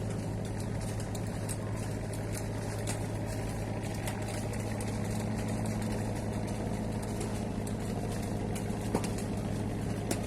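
An engine running steadily at an even idle-like speed, a constant low hum.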